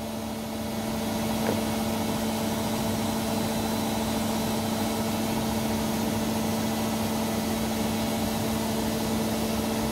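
Samsung Eco Bubble 7 kg washing machine spinning at 1200 rpm in service test mode: its brushed drum motor and drum make a steady hum with one strong low tone. The motor is running again on freshly fitted carbon brushes, the repair for its 3E error.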